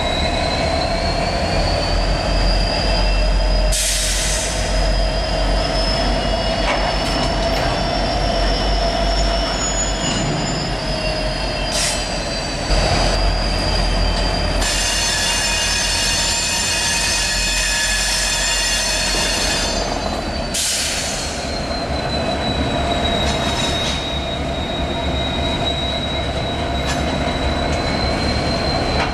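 Freight train wheels squealing against the rails as the train rolls slowly past, a long high squeal that drifts slowly in pitch over the low rumble of the diesel locomotives. Midway it turns louder and harsher for about five seconds, and there are a few brief hissing bursts.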